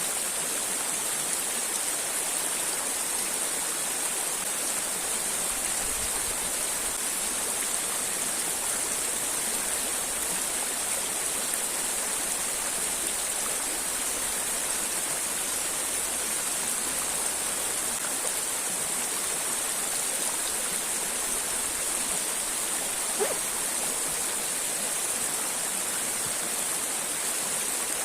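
Steady rushing of a river and waterfall, an even hiss of falling water with no break. One brief click about three-quarters of the way through.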